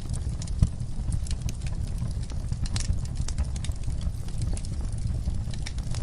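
Wood fire in a fireplace crackling, with irregular sharp pops over a steady low rumble of the flames and one heavier pop about half a second in.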